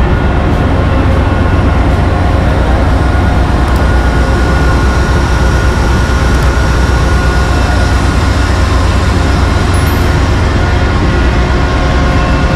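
Ship's engine-room machinery running: a loud, steady low rumble with several constant hum tones over it.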